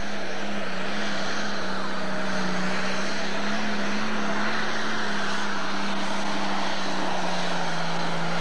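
Turbocharged diesel engine of a pulling tractor running flat out under load while it drags a weight-transfer sled. Its pitch holds nearly steady, dipping slightly near the end.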